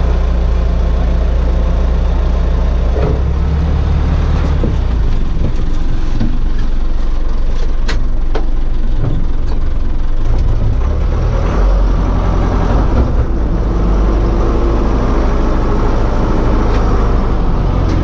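Caterpillar 426 backhoe loader's diesel engine running, heard from inside its cab as the machine drives off, with the engine speed rising and falling with the throttle. A single sharp click sounds about eight seconds in.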